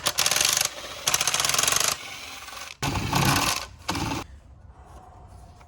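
Ratchet wrench clicking in two quick bursts of rapid clicks while loosening the engine-cover bolts, followed about three seconds in by a few short knocks and handling noises from the tool and cover.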